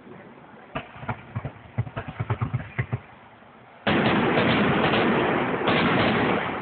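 Aerial fireworks: first a run of sharp crackling pops. About four seconds in a loud bang comes as a shell bursts overhead, its noise carrying on for about two seconds, and another bang follows near the end.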